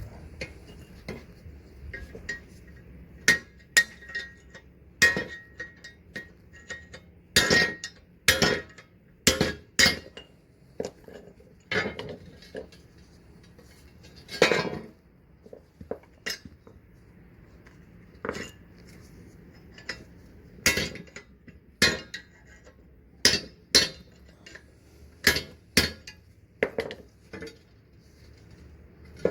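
Hammer blows on metal, driving a stubborn old bushing out of a leaf spring eye: irregular sharp metallic strikes, some hard and some light, a few with a short ring.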